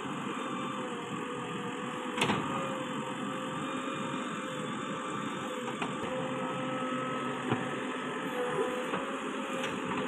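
JCB 3DX backhoe loader's diesel engine running under load with a steady whine from the hydraulics as the backhoe arm digs, its pitch wavering slightly. There is a sharp metallic knock about two seconds in and a few lighter clicks later.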